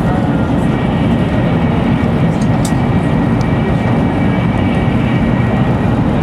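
Shinkansen bullet train running at speed, heard from inside the passenger car: a steady, loud rumble and rush with a faint steady whine above it.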